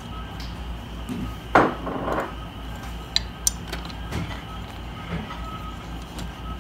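Handling noise as a metal chair bracket is fitted with screws onto a padded seat: a dull knock about one and a half seconds in, some shuffling, then a few small metallic clicks, over a steady low hum.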